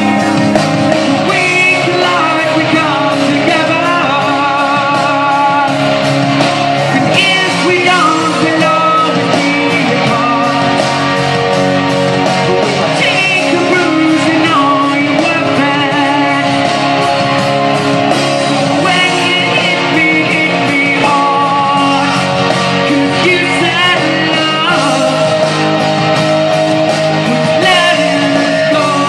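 A man singing live into a handheld microphone over loud backing music, with vibrato on his held notes.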